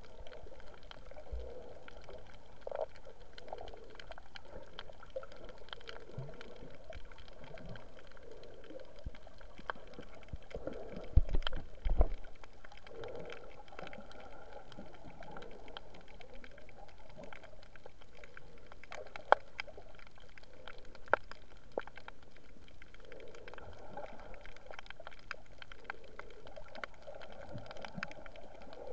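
Underwater sound picked up by a submerged camera over a shallow coral reef: muffled gurgling water with a steady hiss and scattered sharp clicks. A cluster of louder knocks comes about eleven seconds in, and two single sharp clicks come later.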